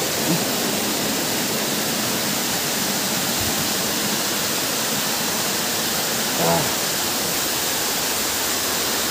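Steady rush of flowing, cascading water from the hot-spring stream, close to the microphone, with a brief pitched call-like sound about six and a half seconds in.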